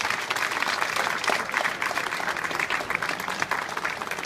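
A crowd applauding, many hands clapping at once.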